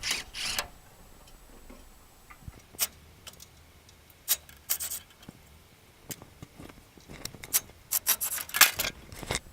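Scattered metal clicks, ticks and scrapes of hand tools and screws being worked loose from an air conditioner's fan motor mount, with a denser run of clicks near the end.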